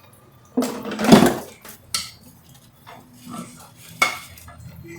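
Dishes and pots clattering as they are washed and handled in a sink. The loudest clatter comes about a second in, followed by sharper knocks near two and four seconds.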